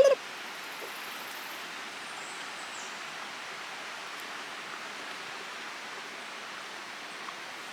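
Steady rushing of a river flowing over rocks, an even wash of water noise.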